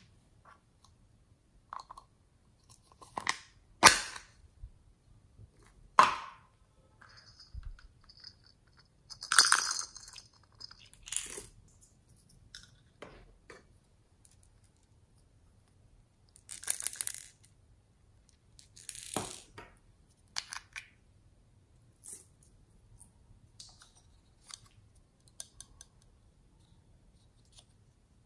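Small plastic toys and containers handled and set down: scattered sharp clicks and taps, with a few longer rustling scrapes of about a second and quiet gaps between.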